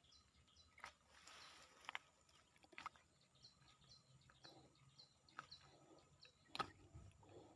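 Near silence: faint outdoor background of short high chirps, repeated about three times a second, with a few soft clicks.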